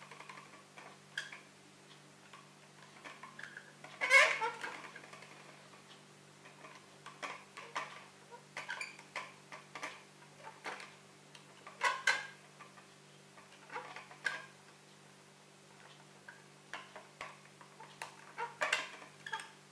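Scattered light plastic clicks and taps as the Tarantula X6 quadcopter's arm and the replacement motor's tiny connector are handled and plugged in, with a louder knock about four seconds in and again about twelve seconds in. A faint steady low hum runs underneath.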